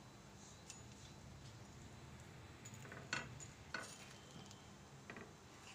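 Steel spatula clinking and scraping faintly against an iron tawa as it presses a toasting sandwich: a few soft clicks, the loudest about three seconds in, over a low steady hum.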